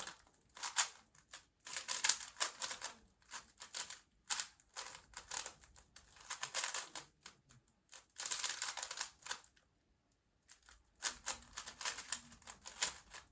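GAN 356 M magnetic speedcube being turned fast during a solve: quick runs of plastic clicking and clacking from the turning layers, broken by short hesitations, with a pause of about a second after about ten seconds.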